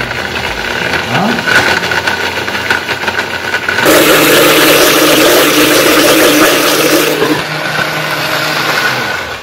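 Countertop blender motor running, blending a thick oat pancake batter. It gets louder about four seconds in, drops back about three seconds later, and stops near the end.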